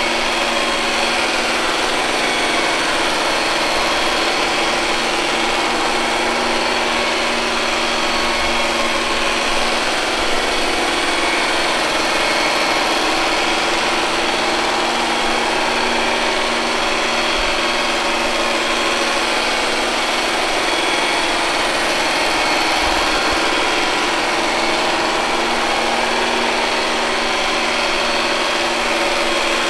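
Robot vacuum cleaner running, giving a steady mechanical whir with a constant low hum.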